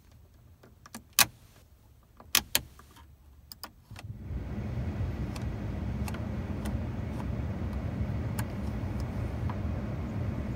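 Sharp clicks of the chrome slide levers on a 1980 Lincoln Continental Mark VI's climate control panel as they are moved. About four seconds in the heating and cooling blower comes on and runs steadily, with faint lever clicks over it.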